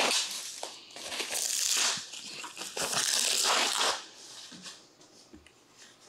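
Protective wrapping rustling and crinkling as it is pulled off a soundbar, in three loud surges over the first four seconds, then quieter handling.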